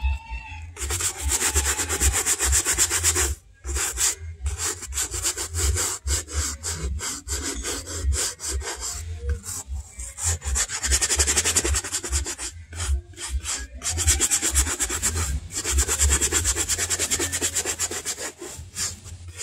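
A stiff-bristled, wooden-handled brush scrubbing a black suede Clarks boot in quick back-and-forth strokes. The strokes come in runs broken by a few short pauses.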